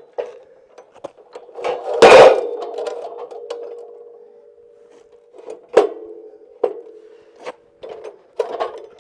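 Steel angle iron clanking down hard in the vise of an abrasive chop saw, the steel ringing on and fading over a few seconds. Lighter metal clicks and knocks follow as the piece is positioned and the vise tightened.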